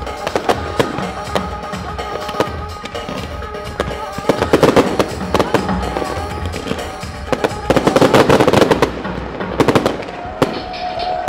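Fireworks shells bursting in quick succession, with thick spells of crackling about halfway through and again near the end, over a music soundtrack playing throughout.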